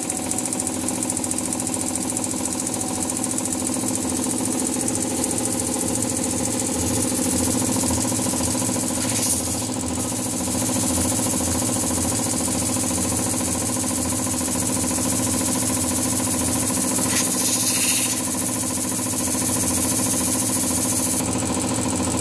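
Blackridge 2.5 HP belt-drive air compressor running steadily on its first start, capacitor-start electric motor driving the pump. A high hiss of air from the unloader valve, which stays open a long time on this first run, cuts off shortly before the end.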